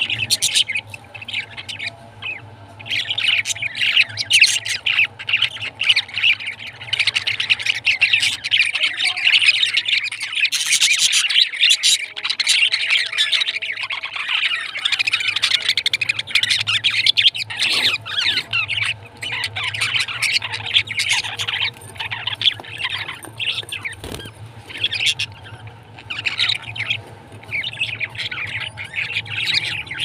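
A cage full of budgerigars chattering together: a dense, continuous stream of quick chirps, warbles and squawks, with a faint steady low hum underneath.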